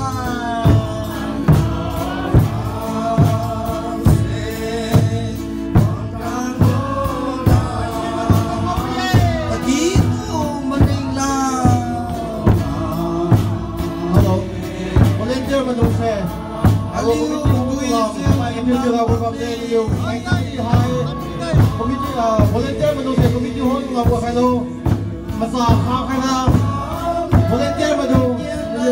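A choir of mixed voices singing, amplified through loudspeakers, over a steady drum beat.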